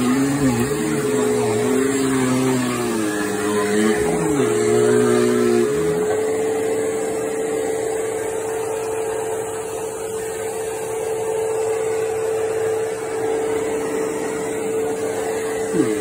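Bissell PowerForce bagged upright vacuum cleaner running on a rug with a steady motor whine. For the first six seconds its lower hum rises and falls in pitch, then holds steady, with a brief quick dip in pitch near the end.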